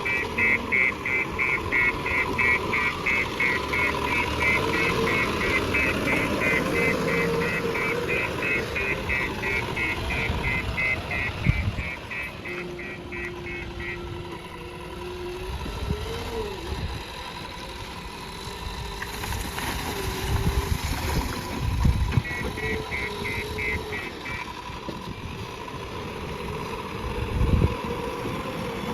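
JCB backhoe loader's diesel engine running under working load, its pitch rising and falling as it works. A fast-pulsing high beep sounds for the first half and again briefly later, and there are a few dull thumps.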